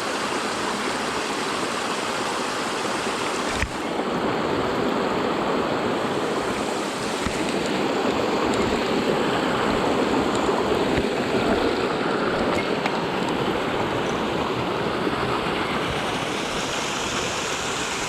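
Mountain stream rushing steadily, with a short click about three and a half seconds in.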